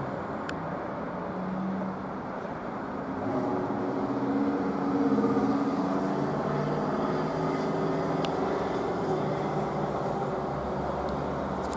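Road traffic: car engines running and passing, with a hum that shifts in pitch and grows louder around the middle.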